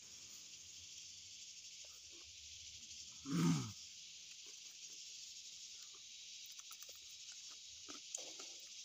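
Steady high-pitched insect drone, with faint clicks and smacks of two people eating by hand, and one short, loud vocal sound, a grunt or hum with a sliding pitch, about three and a half seconds in.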